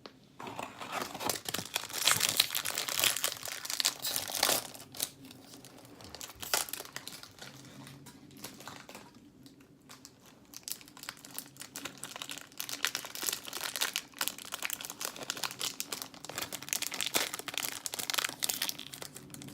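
Plastic-foil trading-card pack wrapper crinkling and tearing as it is ripped open and handled, in irregular bursts.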